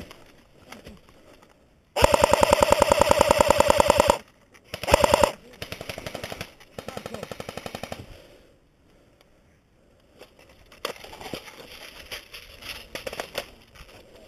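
Airsoft electric rifle (a Cyma AK74M replica) firing full-auto: a rapid burst of about two seconds, then a short burst about a second later, with fainter bursts after. Near the end, footsteps crunch through dry leaf litter.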